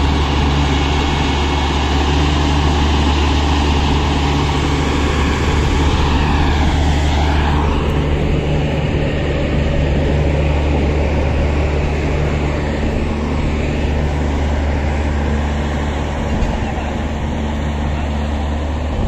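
Heavy diesel engine of a railway utility track vehicle running steadily with a deep hum, a broad hiss over it that thins out about eight seconds in.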